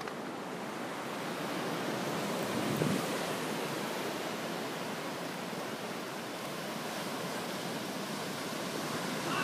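Ocean surf breaking and washing up the beach: a steady rush of waves.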